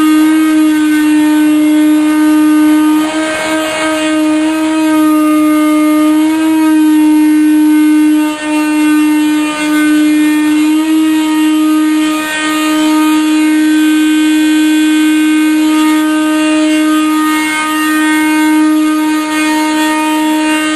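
A loud, steady droning tone with many overtones, held at one pitch without a break, dipping slightly now and then.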